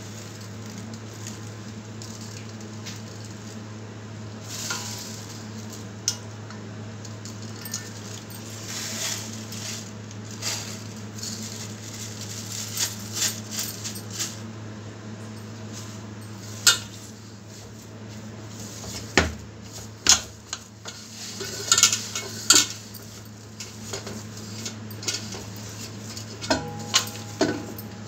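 Hands kneading wheat-flour dough and working sesame seeds into it in a stainless steel plate: scattered taps and scrapes of fingers and dough against the steel, more frequent in the second half, over a steady low hum.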